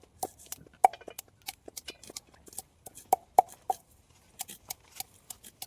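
Knife chopping on a cutting board: irregular sharp knocks, a few with a short ring.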